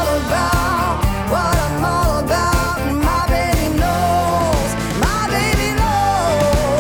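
Background music with a steady drum beat and a gliding lead melody.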